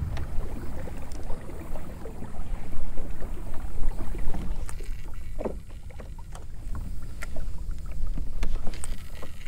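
Kayak on the water with wind on the microphone: a steady low rumble with scattered small knocks and clicks of fishing gear being handled against the hull.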